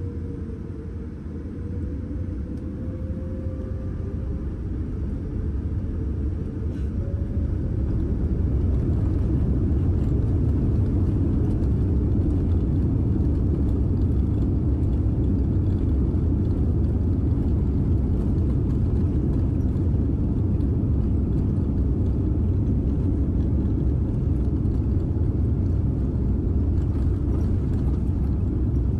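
Cabin sound of a Boeing 787-9 on its takeoff roll. The engines' whine rises in pitch over the first few seconds as they spool up to takeoff thrust, the sound grows louder for about eight seconds, then it settles into a steady, loud rumble of engine thrust and the wheels running down the runway.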